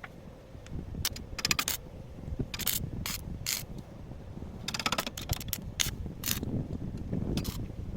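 Irregular mechanical clicking and clacking, some clicks coming in quick runs of three or four.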